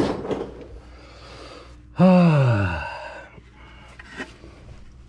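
A man's loud groan about two seconds in, its pitch falling steeply over under a second. A short clatter of handling noise at the start and a single tick near the end.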